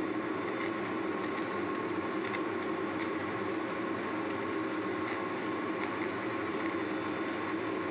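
Steady, even rushing kitchen noise with faint scattered ticks, with no pause or change.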